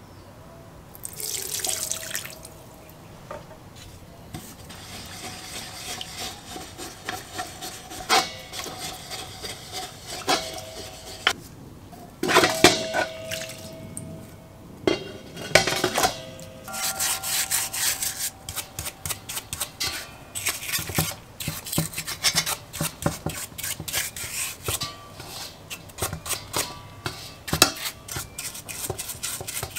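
Engine parts being cleaned in a parts washer's stainless steel basin. A short hiss of cleaning fluid from the nozzle about a second in, then clinks and sloshing as the metal part is handled and knocks the ringing bowl. Through the second half, a brush scrubs the finned cylinder casting in quick rubbing strokes.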